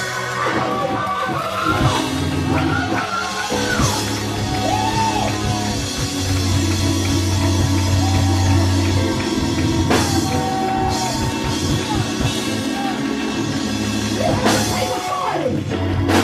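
Live church band playing a fast, loud praise break, with a drum kit and held bass notes, and voices over the music.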